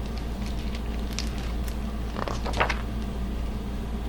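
Picture book being handled and opened: a few scattered soft clicks and rustles, the loudest cluster about halfway through, over a steady low hum.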